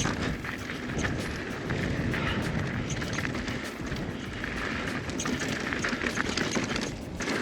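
Mountain bike riding down a dirt trail: tyres crunching over dirt and rock, with steady rattling and clattering from the bike and wind noise on the mounted camera's microphone.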